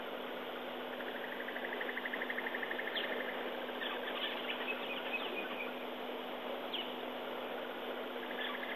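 Daytime bush ambience: a steady chorus of insects with a rapid pulsing trill for a few seconds starting about a second in, and scattered short bird chirps and calls over a faint steady hum.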